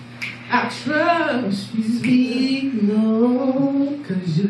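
Women singing a gospel song into microphones, with long held notes that slide up and down in pitch.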